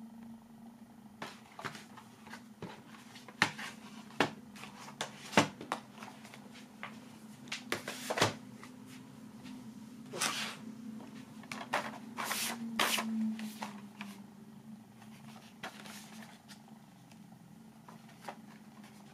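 DVD box-set cases being handled: a scatter of sharp plastic clicks and taps, then a few short rubs of the cases sliding, over a steady low hum.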